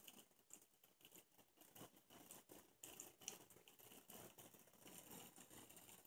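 Near silence: a faint hiss with soft, irregular little crackles.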